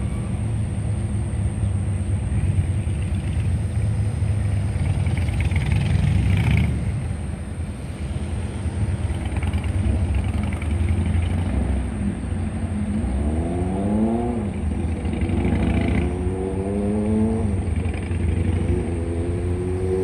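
Steady low rumble of road traffic. In the second half a vehicle engine rises in pitch three times as it accelerates through the gears.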